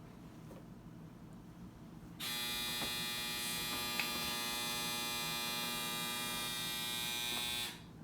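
A small electric motor buzzing steadily for about five seconds. It switches on suddenly about two seconds in and cuts off near the end.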